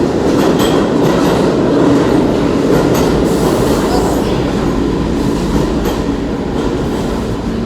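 New York City subway A train running: a loud, steady rumble of the train, with faint clicks scattered through it.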